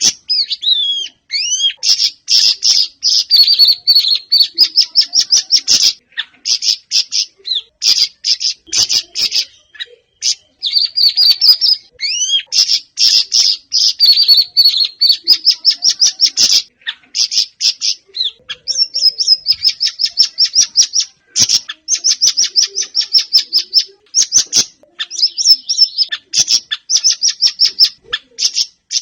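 Siri-siri songbird singing loud, fast chattering phrases of high chirps and trills. Each run lasts several seconds, with short pauses between.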